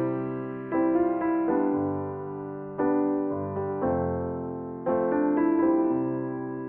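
Background piano music: slow chords struck every second or two and left to ring and fade.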